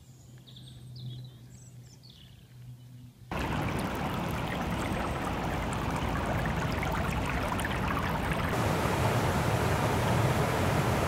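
A few faint bird chirps over a quiet background. About a third of the way in, a sudden cut brings in the loud, steady rushing of a shallow stream running over stones, which continues to the end.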